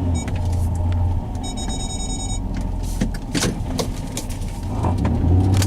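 Car engine running at idle, heard from inside the cabin as a steady low drone. A short high electronic beep comes about a second and a half in, and a few clicks and knocks follow in the second half.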